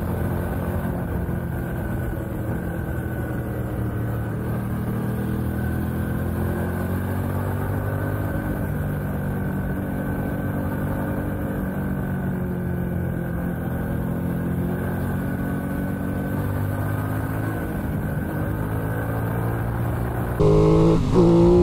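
Aprilia RS660's parallel-twin engine running on the road at a steady cruise, its pitch rising and falling gently, heard close to the engine. The sound gets louder near the end.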